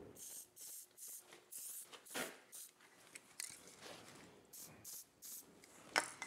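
Aerosol can of layout bluing spraying in a string of short hissing bursts, about ten of them, onto a machined steel bearing seat. A sharp click comes near the end.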